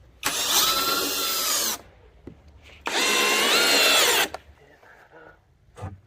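Power drill run in two bursts of about a second and a half each, a short pause between them, its motor pitch shifting slightly under load.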